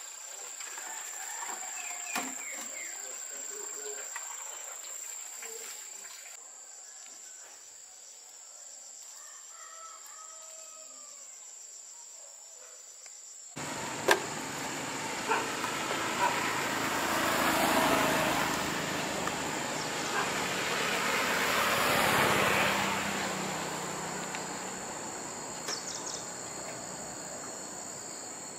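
Insects keep up a steady high-pitched drone. About halfway through the sound gets louder, and two vehicles pass on the road one after the other, each swelling up and fading away.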